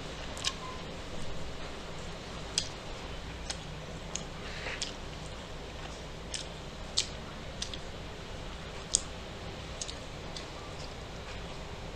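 Close-miked eating sounds: a person chewing fried dried fish (daing), with sharp mouth clicks and smacks at irregular intervals, roughly one every second.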